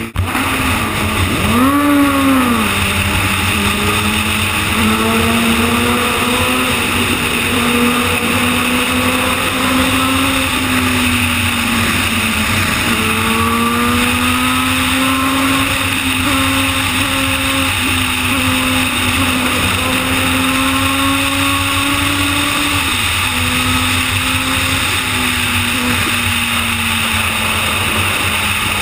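Suzuki GSX-R sport bike's inline-four engine heard from the saddle at highway speed, over steady wind and road noise. A quick rev rises and falls about two seconds in, and the engine note climbs and settles several more times as the throttle and gears change.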